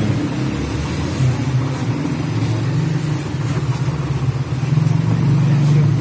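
A steady low mechanical hum, like a running engine, with no break or change.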